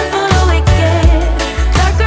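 Background music: an R&B-style song with a heavy bass beat and a sung melody.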